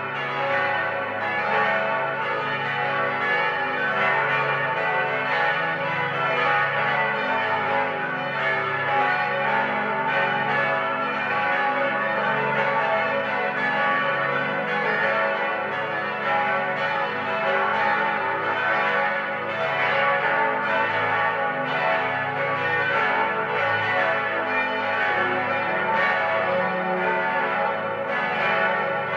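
Eight swinging church bells ringing together in a full peal, tuned to F sharp, A, C sharp, E, F sharp, G sharp, A and B. Their strikes overlap in a dense, continuous ringing that holds a steady level without pause.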